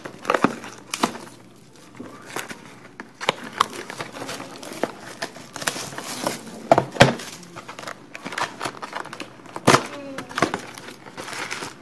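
Plastic shrink wrap being torn and peeled off a cardboard trading-card box, crinkling and crackling unevenly, then the cardboard box being opened and its packs handled. Two sharper snaps or knocks, loudest about seven and ten seconds in, stand out.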